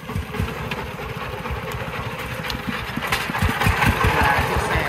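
Công nông farm truck's single-cylinder diesel engine running at low revs, a steady chugging at about five beats a second that grows louder in the second half.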